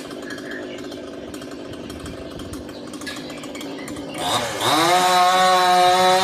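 Two-stroke chainsaw running at low speed, then revving sharply about four seconds in and holding at full throttle, much louder.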